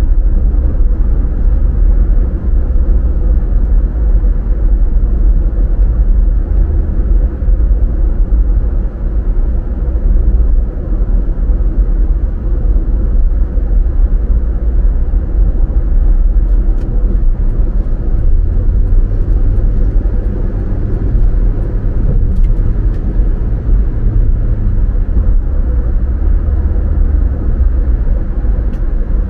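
Car being driven: a steady low road and engine rumble with no let-up, a little heavier in the bass in the second half.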